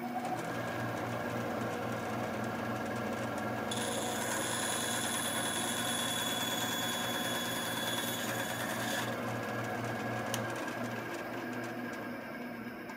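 A 9-inch benchtop band saw running steadily with a fluttering hum. For about five seconds in the middle a higher whine joins in as the blade cuts into a plywood board. The sound begins to fade near the end.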